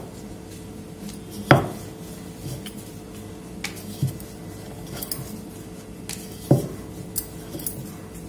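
Wooden rolling pin rolling out a thin round of dough on a hard countertop, with sharp knocks as the pin meets the counter, loudest about one and a half seconds in and again about six and a half seconds in, and lighter taps between.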